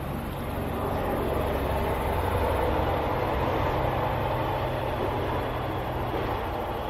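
A train going by at a distance: a steady low rumble that swells over the first few seconds and then slowly eases off.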